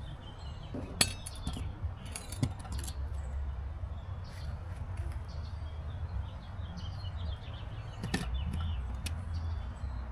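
A few sharp clinks and knocks from plumbing fittings and tools being handled during pipe work, over a steady low rumble, with faint bird chirps.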